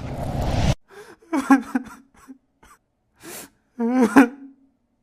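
A swelling rush of noise that cuts off abruptly under a second in, followed by short breathy human vocal sounds: a breath and brief voiced utterances, the louder ones about one and a half and four seconds in.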